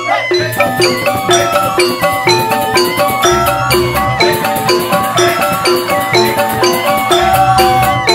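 Balinese joged bumbung gamelan playing: rows of struck mallet keys ringing out a steady, fast repeating pattern over kendang hand-drumming.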